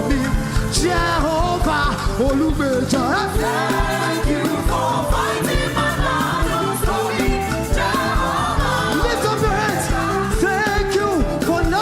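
Upbeat gospel praise music: a voice sings with gliding runs over a band, with a steady drum beat and bass.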